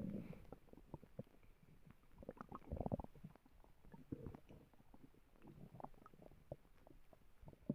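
A person's stomach growling: faint, irregular gurgles and little pops, with a louder low rumble about three seconds in.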